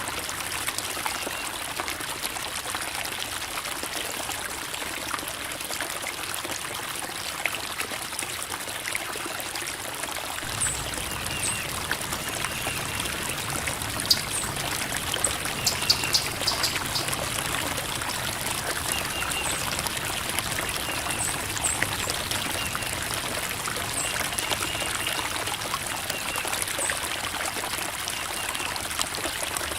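Creek water babbling and trickling over rocks in a steady wash, a little fuller and deeper from about ten seconds in. Faint short high chirps come and go over it.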